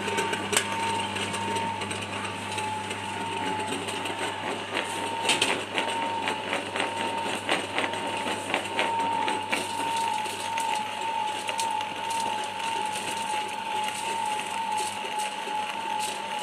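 Small animal-feed pellet mill running steadily, its motor humming with a constant whine. Freshly pressed feed pellets patter and click as they drop out of the chute into a plastic bucket.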